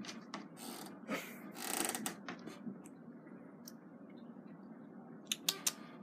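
Scattered small clicks and a brief rustling scrape about a second and a half in, then three quick sharp clicks near the end, over a faint room hum.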